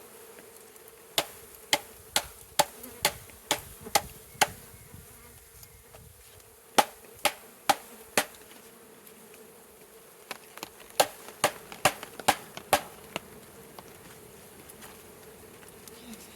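A package of Italian honeybees humming steadily, with three runs of sharp knocks, about two a second, as the package is rapped to shake the last bees out into the hive.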